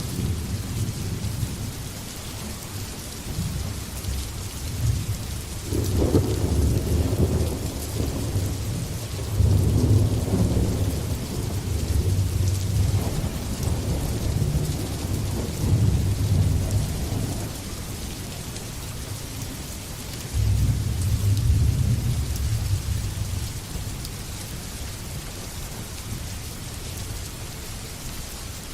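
Steady rain hissing, with thunder rumbling over it: long low rolls build and fade several times, and a later roll of thunder breaks in suddenly and dies away over a few seconds.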